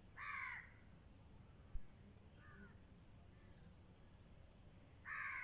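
Crow cawing: two loud caws about five seconds apart, with fainter caws between them. A single brief thump just under two seconds in.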